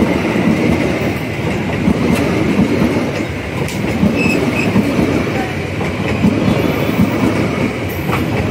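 Passenger coaches of a train rolling past close by, a steady loud rumble with repeated clatter of the wheels over the rail joints.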